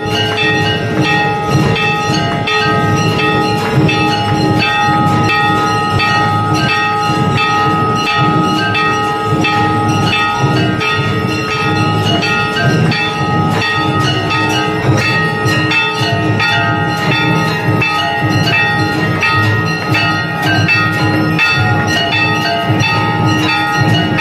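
Hanging brass temple bells struck over and over by hand, a fast run of clangs with several bells ringing on together.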